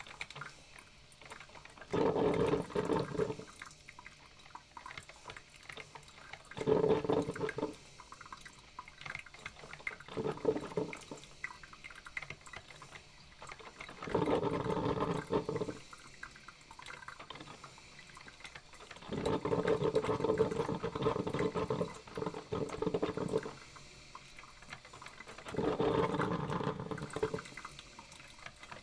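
Coffee maker brewing: watery sounds come in six bursts of one to three seconds each, every four to six seconds, with a fainter crackling hiss between them.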